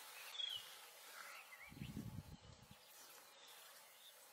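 Faint outdoor bush ambience with a few high bird chirps near the start and a brief low rumble about two seconds in.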